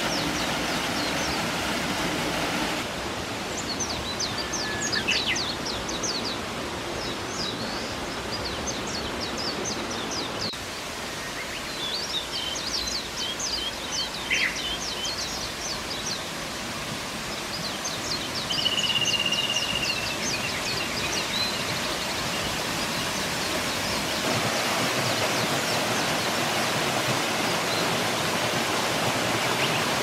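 Steady rush of falling water from a mountain waterfall and stream, fullest near the end. Small birds sing quick repeated chirps and trills over it through much of the middle, with one longer whistled note a little before the two-thirds mark.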